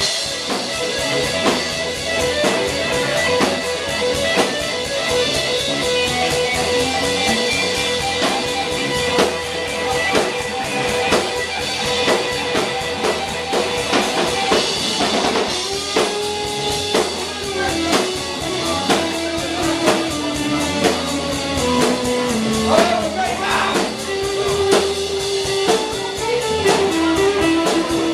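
Live rock band playing: electric guitar over a drum kit and bass, with a held melody line that steps down in pitch about halfway through and climbs back near the end.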